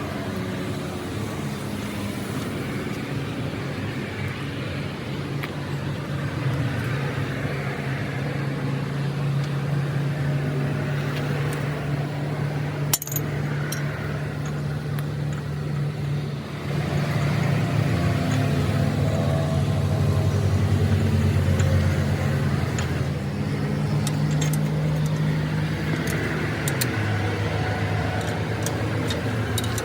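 A motor vehicle engine running steadily with a low hum, its pitch shifting about halfway through and again near the end, with a single sharp knock partway through.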